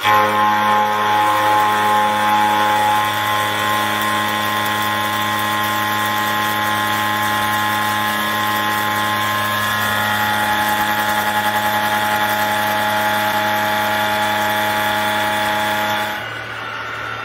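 Seco 335.25 disc milling cutter on a CNC machining center cutting C45 steel by circular interpolation: a loud, steady machining whine of several held tones over cutting noise. About sixteen seconds in it drops to a quieter level.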